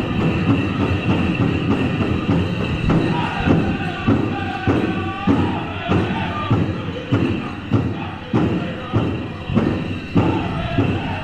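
Powwow drum struck by several drummers in a steady beat, about one and a half beats a second, with a group of men singing a chicken dance song over it.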